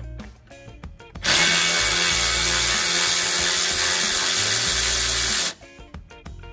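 Background music with a steady beat, broken about a second in by a loud, steady, machine-like whirring noise that lasts about four seconds and cuts off suddenly.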